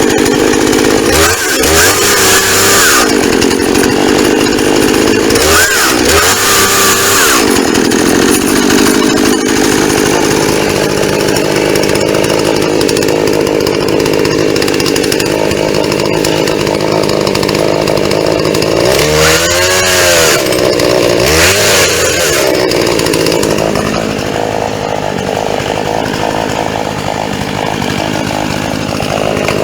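Chainsaw engine running at high speed, likely cutting into a shipping box. Its pitch drops and climbs back as the throttle is eased and squeezed again: near the start, around six seconds in, and twice near twenty seconds.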